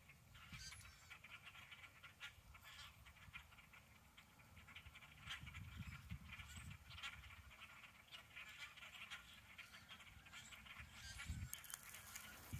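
A flock of crows perched in bare treetops, calling faintly in many short, overlapping calls, with a few low rumbles partway through.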